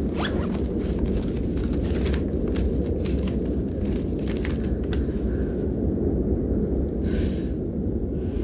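A steady low rumble, with light rustling and clicks over the first five seconds as a backpack is searched and a paper letter drawn out and unfolded. A short hiss comes about seven seconds in.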